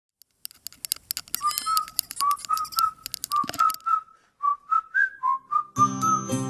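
Opening of a pop song: a whistled tune of short notes over sharp clicks, with the rest of the band coming in shortly before the end.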